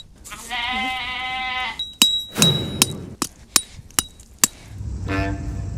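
A bleat like a sheep or goat, then about seven sharp metallic knocks of a hammer driving tent pegs, one leaving a brief ring, and a second, shorter bleat near the end.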